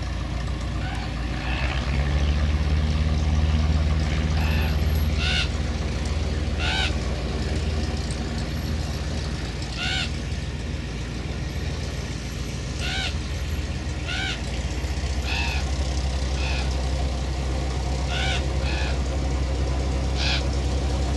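A Cessna 172's four-cylinder piston engine running steadily at low power, growing louder about two seconds in. Over it a bird calls about nine times in short, sharp calls a second or more apart.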